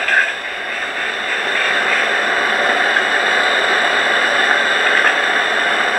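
Steady static hiss from a noisy ghost-hunting recording, with a brief faint sound just after the start that the on-screen caption marks as a laugh given in answer to a question.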